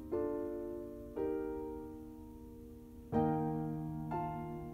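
Soft background piano music: four slow chords, each struck and left to fade.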